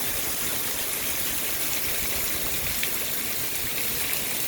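Heavy thunderstorm rain pouring steadily, an even hiss of falling water with no let-up.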